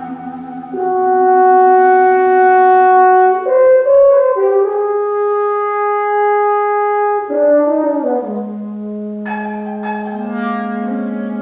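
Contemporary chamber ensemble with a French horn prominent, playing long held notes that shift to new pitches several times. Two sharp struck accents come near the end.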